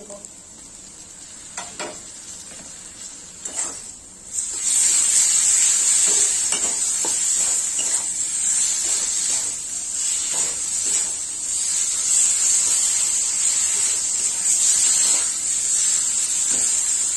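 Ground spices and sliced vegetables frying in hot oil in a metal kadai. A few quiet scrapes come first, and loud sizzling sets in about four seconds in, with a metal spatula scraping and stirring through it.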